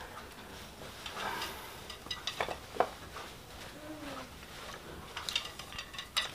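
Faint, scattered clicks and knocks from handling a wooden wayang golek rod puppet as it is moved about, with a quiet room in between.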